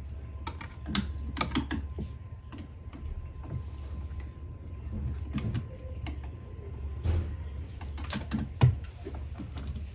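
Scattered clicks and small knocks of ignition coil connectors and wires being handled and pushed into place in the engine bay, the loudest knock a little over eight seconds in, over a low steady hum.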